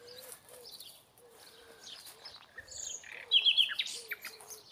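Small songbirds chirping in scattered short, high notes, with the loudest a quick run of about four chirps past the middle.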